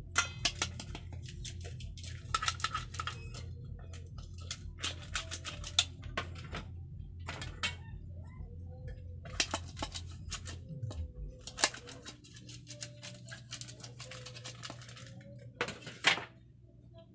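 Kitchen utensils clinking and knocking against metal bowls and aluminium llanera molds as cake batter is spooned into them, in many separate irregular clinks. A low hum in the background winds down and stops about eleven seconds in.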